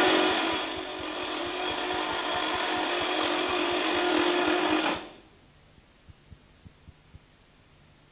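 A motor-driven mechanism of a swash-plate variable-displacement engine running with a steady high whine, which cuts off suddenly about five seconds in. Faint regular ticking, about three a second, then continues over a low hum.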